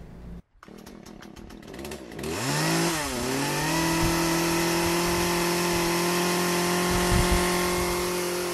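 Chainsaw revving up about two seconds in, dipping once, then running steadily at high revs; a sound effect for wood being carved.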